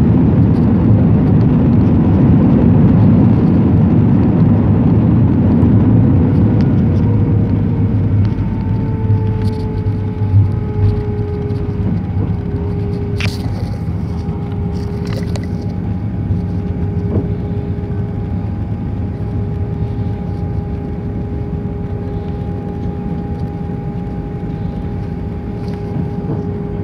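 Cabin noise of an Airbus A320-family jet slowing on the ground after landing. A loud rumble from the engines and the rolling wheels fades over the first several seconds as the engines wind down, leaving a quieter steady hum with a whine from the idling engines. Two sharp clicks come about halfway through.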